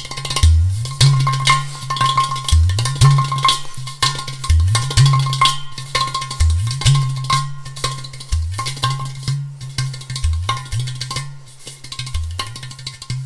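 Clay pot drum played by hand in a steady rhythmic pattern: deep booms that bend upward in pitch, coming about once a second, with quicker taps on the clay body between them.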